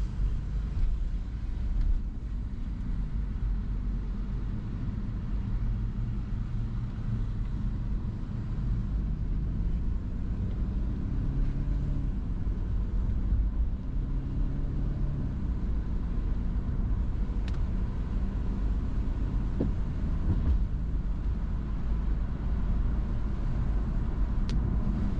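Car driving along with a steady rumble of engine and road noise, its low engine tone wavering slightly.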